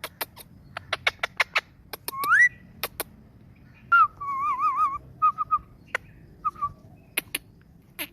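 Ringneck parrot calling: a string of short sharp chirps and clicks, with a rising whistle about two seconds in and a wavering, warbling whistle about four seconds in, followed by a few short whistled notes.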